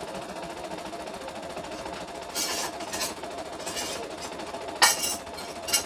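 CNY E960 computerized embroidery machine running steadily as it stitches, with several short sharp clacks, the loudest about five seconds in.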